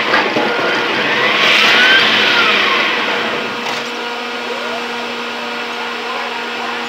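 City street traffic noise: a continuous rush of passing vehicles over a steady motor hum, with a few short squeals that rise and fall in pitch. The sound swells for the first few seconds and then settles to a lower, steadier level.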